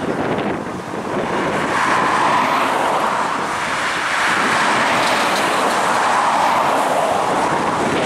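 Cars and a ute towing a trailer driving past close by on a highway one after another, a steady rush of tyre and engine noise that swells as each vehicle nears.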